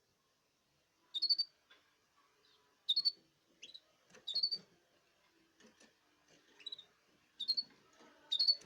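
Caged canaries giving short, sharp chirps: quiet for the first second, then about seven brief call notes or pairs of notes, roughly one a second.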